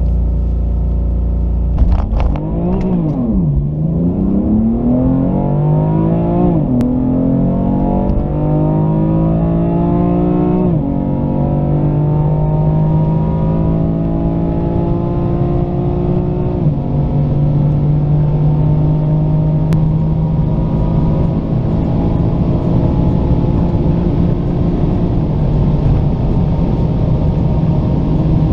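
BMW M4 Competition's 3.0-litre twin-turbo straight-six at full throttle, heard from inside the cabin. It holds revs on launch control, launches about two seconds in, then pulls up through the gears. Each rise in engine pitch is cut by an upshift with a sudden drop in pitch, five shifts from first to sixth, and each pull is longer than the last.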